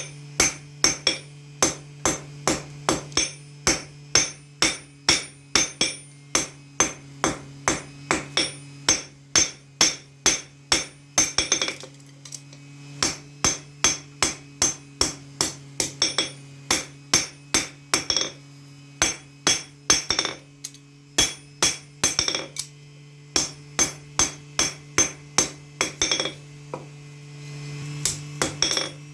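Hammer blows on steel in knife forging, each strike ringing, about two to three a second in runs with short pauses. A steady low hum runs underneath.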